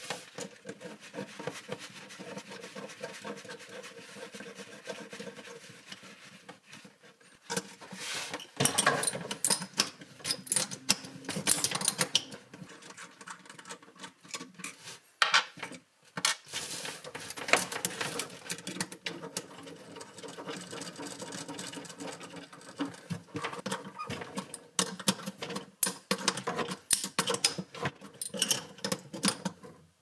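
Metal compression fittings of a 3/8-inch retrofit tee on a sink's cold-water shutoff valve clicking, clinking and scraping as they are handled, threaded together and tightened with wrenches. The clicks are irregular and come in denser spells.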